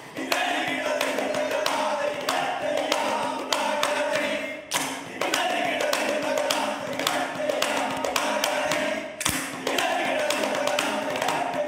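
A chorus of voices chanting and singing together in a rhythmic stage chant, with many sharp foot stamps and claps from the dancing chorus cutting through it, over a steady low held note.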